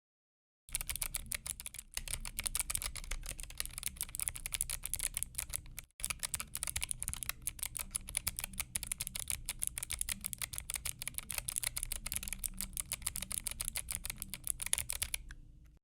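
Fast, continuous typing on a custom mechanical keyboard, a dense run of key clacks with a brief break about six seconds in.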